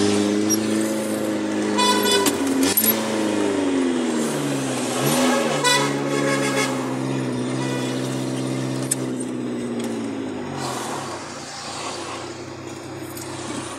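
Car engine heard from inside the cabin while driving in slow traffic, its pitch dipping and rising twice. Two horn blasts sound over it, about two seconds in and around six seconds in.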